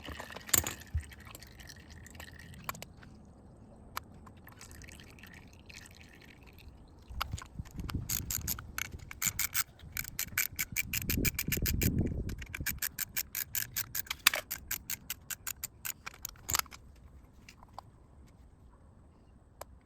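Socket ratchet clicking in quick, even runs from about seven seconds in until shortly before the end as it backs out an 8mm bolt of the oil filter cover, with some low rubbing and handling noise in the middle.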